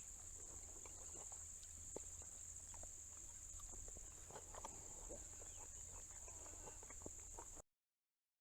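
Faint steady high-pitched chirring of crickets, with faint scattered clicks and taps beneath it. The sound cuts off abruptly near the end.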